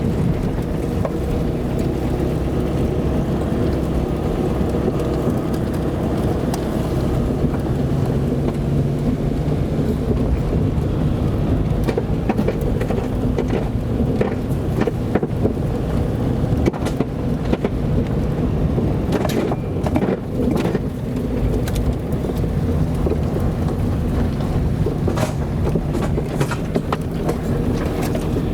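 Car driving over a rough dirt road: the engine runs steadily under a constant rumble of tyres, with frequent small knocks and clicks from gravel and bumps.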